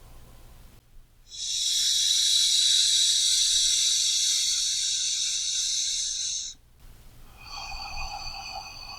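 Slow, deep human breathing: one long, loud breath lasting about five seconds that starts and stops cleanly, then a softer, slightly whistly breath beginning near the end.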